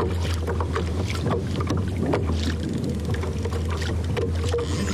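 Water slapping and ticking against a kayak hull as it rocks at sea, over a steady low wind rumble on the microphone.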